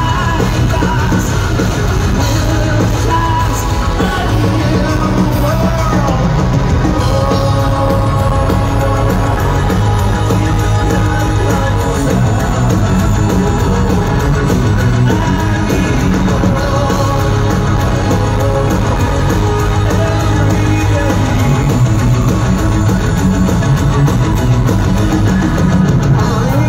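Live power metal band playing at full volume: a man's sung lead vocals over electric guitar, keytar and a driving rock beat.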